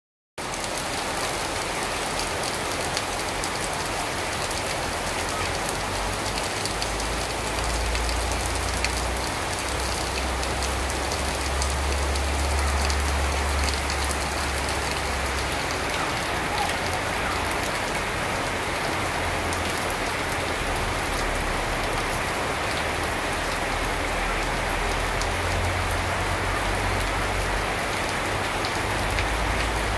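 Steady rain falling on garden foliage and a wet paved yard, with a low rumble underneath that comes and goes.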